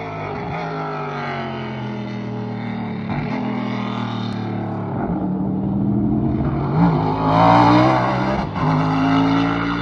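V8 race car with a sequential gearbox accelerating hard, its engine note climbing and dropping sharply at each quick upshift. It grows louder as it approaches, is loudest as it passes near the end, then drops again on another shift.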